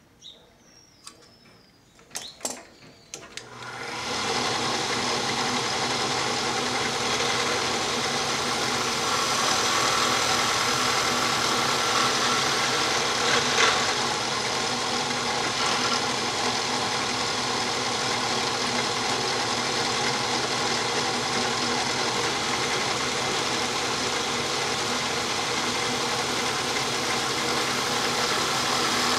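An industrial drill motor, rigged as a homemade lathe, starts about four seconds in after a few clicks. It then runs with a steady whine, turning a white plastic coil bobbin against a hand-held flat blade, and is briefly louder about fourteen seconds in.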